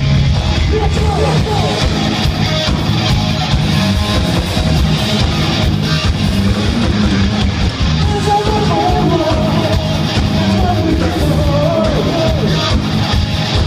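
Live hard rock band playing loudly, heard from the audience: distorted electric guitar and a drum kit, with a wavering lead line rising above the band about eight seconds in.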